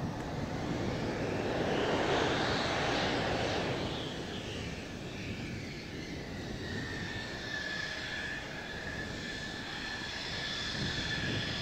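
Mitsubishi F-2 fighter's jet engine running at low power as the jet rolls along the runway, the noise swelling about two to three seconds in and then easing, with a steady high turbine whine through the second half.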